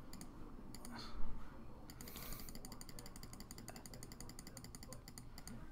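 Computer mouse button clicked rapidly and evenly, about five or six clicks a second, tapping the plus button to raise an item's quantity one step at a time. A brief thump comes about a second in.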